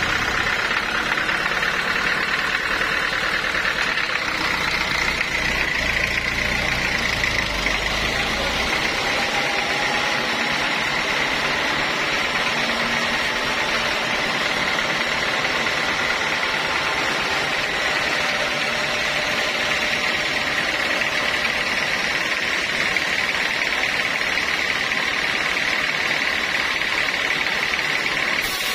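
Sawmill saw running steadily, a high, even whine over a noisy mechanical hum; a deep low rumble under it drops away about nine seconds in.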